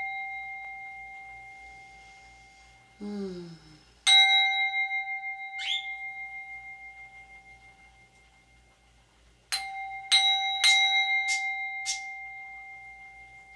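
A small hand-held singing bowl struck with a striker, ringing out and slowly fading. It is struck once about four seconds in, then three times in quick succession from about nine and a half seconds in.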